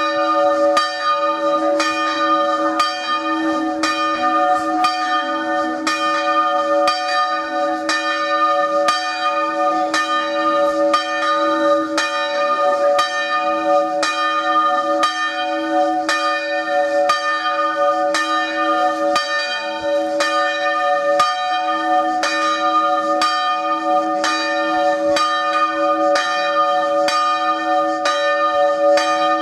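The church bells of a three-bell swinging concerto, bronze bells cast in 1850 by Pietro and Teodoro Sini, ringing in the tower. The clapper strikes come steadily, about two a second, over a continuous ringing hum.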